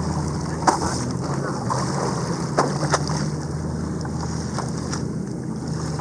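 Boat on the water: a steady low motor hum with water washing over it, broken by a few short sharp knocks.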